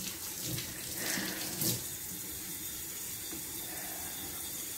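Kitchen faucet running steadily into the sink while hands are rinsed, with a few faint knocks in the first couple of seconds.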